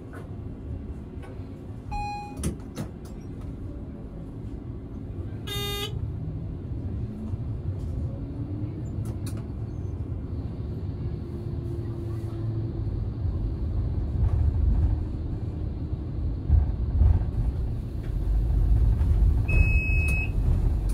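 Tram running over street track with a low rumble that grows louder as it picks up speed, and a faint whine that rises in pitch partway through. The tram's warning bell gives a short ring about six seconds in, after a shorter tone near two seconds. A short high beep sounds near the end.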